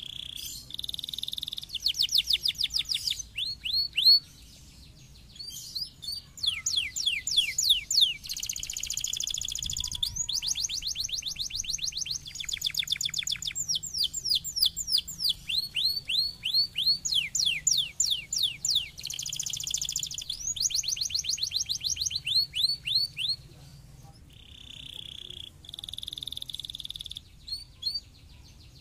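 Domestic canary singing: long rapid trills of repeated falling whistles alternate with short steady buzzy rolls, broken by brief pauses.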